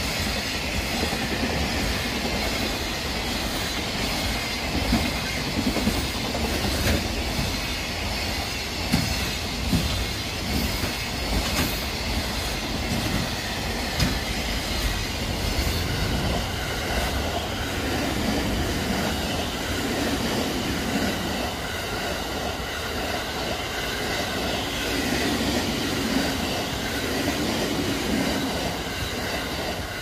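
Long container freight train passing at speed: a steady rumble with wheels clacking over the rail joints. The train noise carries on at much the same level through the second half.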